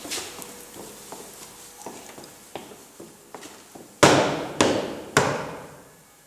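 Light steady footsteps, then about four seconds in, three loud knocks on a wooden door about half a second apart.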